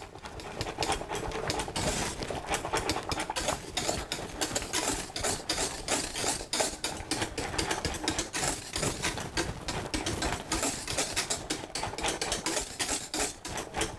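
Wire balloon whisk beating thin porridge in a stainless steel saucepan: a fast, even clatter of the wires against the pan, with the liquid sloshing.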